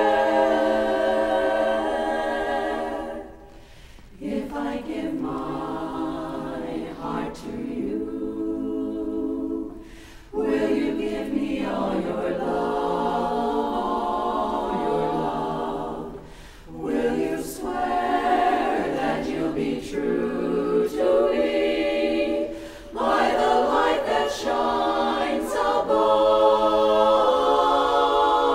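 Women's a cappella chorus singing barbershop-style close harmony, in sustained phrases broken by brief pauses about four times.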